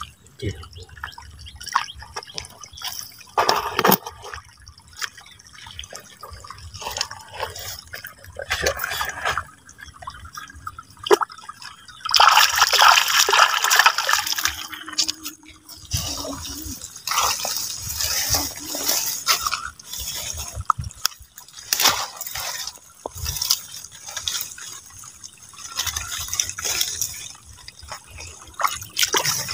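Water splashing and dripping in irregular bursts, with a louder rush of pouring water about twelve seconds in that lasts a few seconds.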